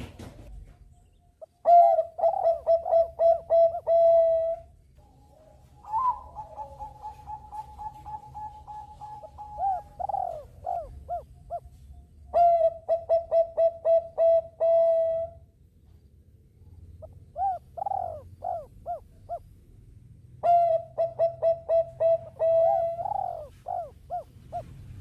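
Zebra dove (perkutut bangkok) cooing: five phrases of quick, rhythmic, bubbling coo notes with short pauses between them, one phrase opening on a long held note.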